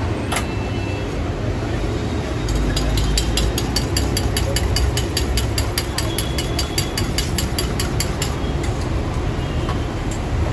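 Steady low rush of a gas wok burner running, with a quick run of metallic clicks, about five a second, from a spoon beating eggs in a steel bowl, starting a couple of seconds in and stopping a couple of seconds before the end.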